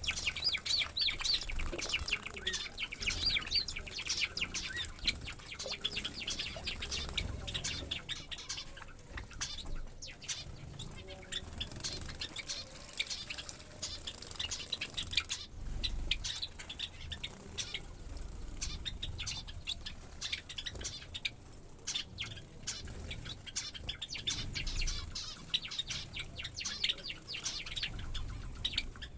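A group of small finches and Java sparrows chirping in a quick, dense chatter, with wings fluttering and splashing as they bathe.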